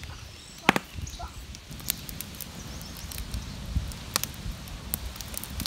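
Outdoor ambience: a low rumble with scattered light clicks and knocks, a sharper knock about a second in, and a few faint high chirps.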